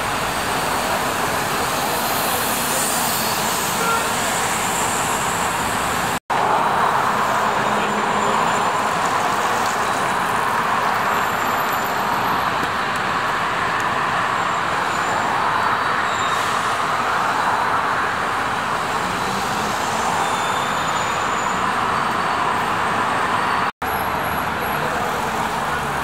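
Steady road-traffic noise from cars and buses on a busy city street. It cuts out for an instant twice, about six seconds in and near the end.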